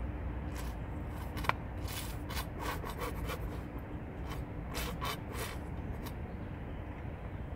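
A plastic squeeze bottle of thick, nearly used-up liquid attractant being squeezed over a carp-bait stick: a run of short scrapes and rustles. They stop about six seconds in.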